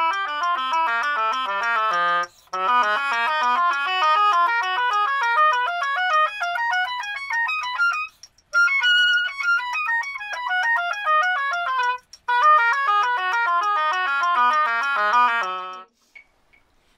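Bassoon playing a scale exercise in fourths: quick runs of notes down and up, with brief breaks between runs. It stops about a second before the end.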